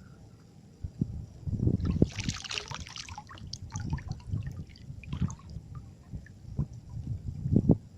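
Water splashing and sloshing, with the loudest splash about two seconds in and smaller ones after, among low thumps.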